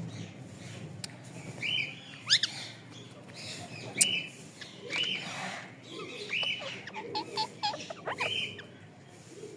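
A pet parrot giving a series of short chirps and squawks, with a few sharp rising whistles, the loudest about two and four seconds in.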